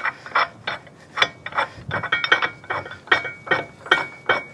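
Heavy steel shackle and links clinking as they are worked by hand: a quick series of sharp metallic clicks with a slight ring, roughly two or three a second.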